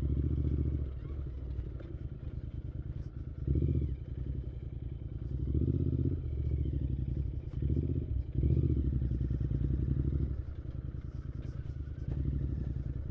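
Motorcycle engine running at low speed while riding, swelling louder several times as the throttle is opened and then eased off.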